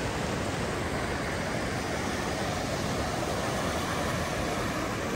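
Whitewater rushing steadily through an artificial slalom course, a constant even roar of churning rapids.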